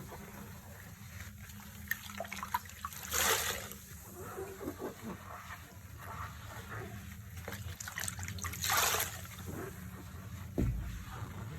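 Foamy floor-cleaning solution trickling and splashing, with two louder splashes about three seconds in and near nine seconds.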